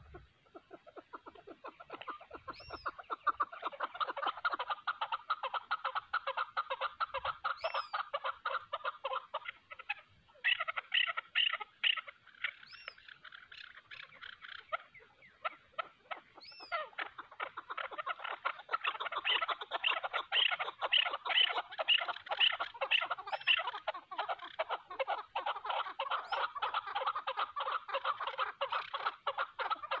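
Chukar partridges calling back and forth: fast runs of chuck notes that swell into a loud, dense chorus in the second half, with a short high note every few seconds. It is the challenge calling between a decoy chukar and wild mountain chukars.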